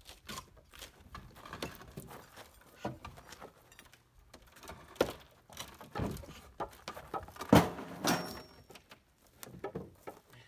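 Nailed plywood decking being pried up with a bar: irregular knocks and clatters of wood and metal, loudest around the middle, with a short high squeak just after eight seconds in.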